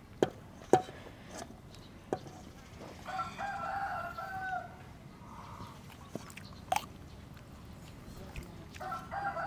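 A rooster crows once, a drawn-out call about three seconds in. A few sharp clicks and knocks, the two loudest near the start.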